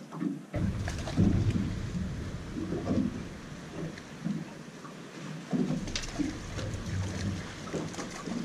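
Wind rumbling on the microphone, starting suddenly about half a second in, with irregular knocks on the boat as a fish is fought beside it.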